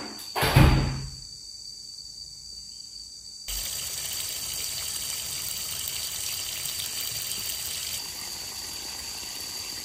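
A loud thump about half a second in. Then, from about three and a half seconds in, a steady gush of water pouring out of an Intex above-ground frame pool's drain valve and splashing onto tiles as the pool is emptied, with insects chirring steadily behind it.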